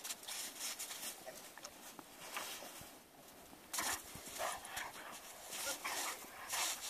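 Bernese mountain dog burrowing its face through snow and rolling on its back in it: irregular bursts of snow crunching and scraping, loudest about four seconds in and again near the end.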